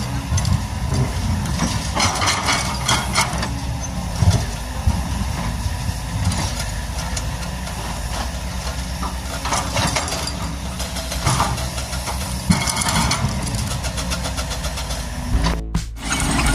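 Kobelco SK200 hydraulic excavator's diesel engine running steadily, with bursts of clatter and hiss on top. The sound drops out briefly near the end.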